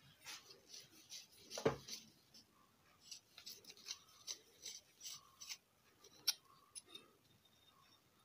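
Faint scraping and rubbing of a metal tool on an aluminium amplifier heatsink: a run of short scratchy strokes with a couple of sharper clicks, one about a second and a half in and one about six seconds in, as the heatsink and its IC are worked on.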